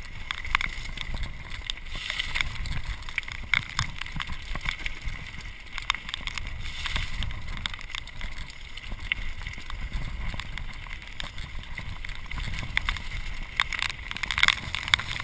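Mountain bike riding fast down a wet, loose-stone trail: tyres crunching over gravel and the bike rattling and clattering over rocks in a string of sharp knocks, with a steady wind rumble on the microphone.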